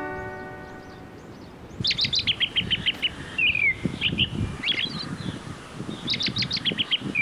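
A small songbird calling from about two seconds in. Each phrase is a quick run of bright chirps followed by a couple of down-slurred notes, and the phrase comes again near the end. A low rustle of wind or leaves runs underneath.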